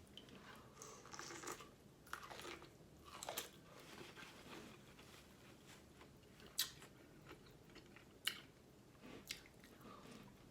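Close-miked biting and chewing of corn on the cob, with soft crunches and a few sharp clicks, the loudest about six and a half and eight seconds in.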